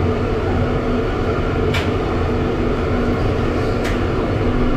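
Steady low drone of a passenger ship's engines heard in its galley, with a metal spatula scraping the wok twice, about two seconds and four seconds in.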